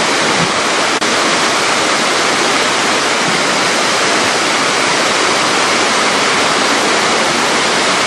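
Shirahige Falls, spring water gushing from cracks in a rock cliff and pouring down behind curtains of ice: a steady, loud rush of falling water.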